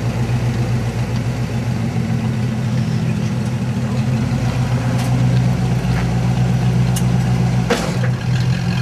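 Toyota FJ40 Land Cruiser's engine idling steadily through its exhaust, with a few short clicks in the second half.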